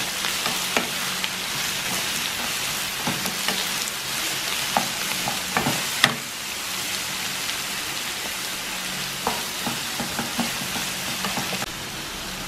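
Sliced onions, green chillies, ginger and garlic sizzling steadily in a non-stick pan while being sautéed until soft. A wooden spatula stirring them scrapes and knocks against the pan now and then, with the sharpest knock about six seconds in.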